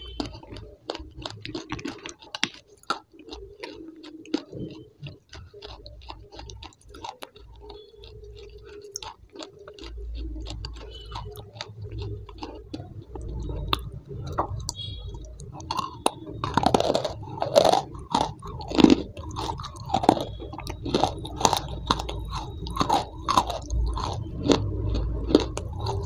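Close-miked chewing with a rapid run of crisp crunches and wet mouth clicks, growing louder about two-thirds of the way through.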